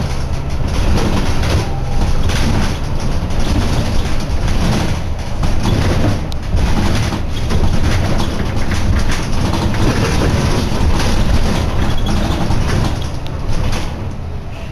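Interior of a Nova LFS articulated city bus under way: steady low engine and road rumble with frequent rattling and clattering of the body and fittings.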